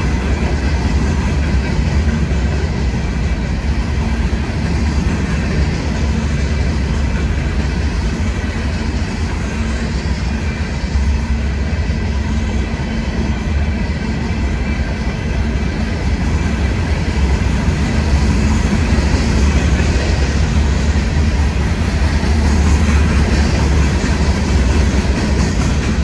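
A CSX freight train's open-top hopper cars rolling past close by: a steady, heavy rumble of steel wheels on the rails.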